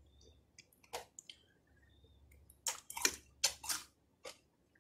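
Chewing a mouthful of strawberry cornflakes soaked in liquid drinking yogurt, in a cluster of short chewing sounds past the middle, with a single spoon click against the bowl about a second in.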